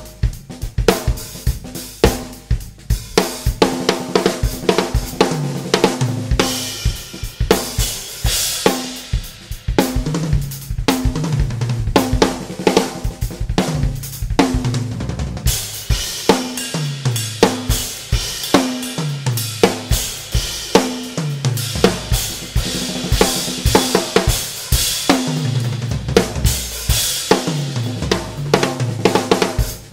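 Full drum kit played as a groove with fills, featuring a Mapex Black Panther snare drum tuned to medium, alongside kick drum, hi-hat and cymbals. Several times the playing breaks into tom fills that step down in pitch, with cymbal crashes ringing over them.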